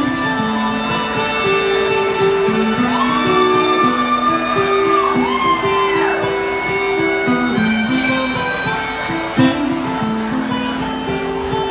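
Harmonica played into a vocal microphone in a sustained melodic solo, with some notes bent in pitch, over a strummed acoustic guitar. One sharp knock sounds about nine seconds in.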